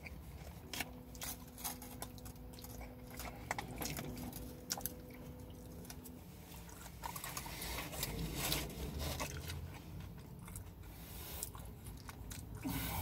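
A person chewing and biting food close to the microphone, with many small mouth clicks and crunches. A faint steady hum runs under it for the first half.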